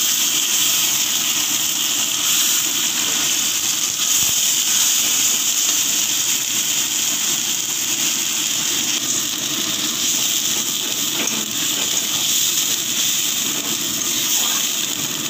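Wet spice paste and potatoes sizzling in hot mustard oil in a kadai: a steady, even hiss of frying.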